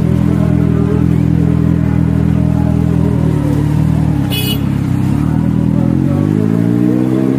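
Kawasaki Ninja 1000's inline-four engine running through a freshly fitted SC Project slip-on exhaust on a bend pipe, ticking over steadily, then rising in revs over the last couple of seconds as the bike pulls away.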